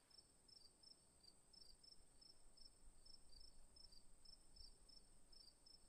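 Near silence with a cricket chirping faintly and evenly, about three high chirps a second, over a faint steady high-pitched whine.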